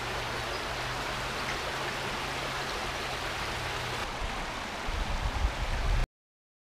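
Shallow stream running over rocks, a steady rushing of water. About five seconds in, wind buffets the microphone with a low rumble, and then the sound cuts off abruptly.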